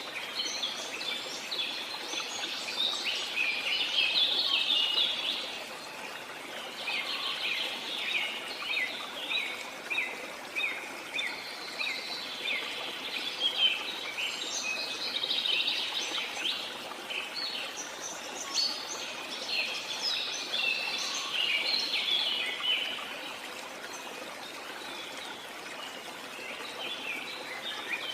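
Many birds chirping and calling in quick, overlapping phrases over a steady rush of falling water, with a short lull in the calling near the end.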